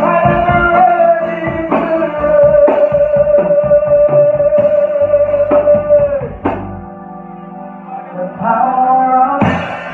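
Live lovers rock reggae band playing, with electric bass, guitar and drums under singing. A note is held long through the middle, then the music drops to a quieter passage about six and a half seconds in before the full band comes back near the end.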